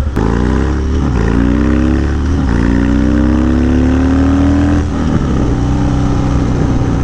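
Harley-Davidson Dyna's V-twin through a Bassani Road Rage 3 exhaust, pulling hard through the gears. The engine note climbs, drops back at upshifts about one and two and a half seconds in, and climbs again. Near five seconds the throttle is rolled off and the engine settles to a steady cruise.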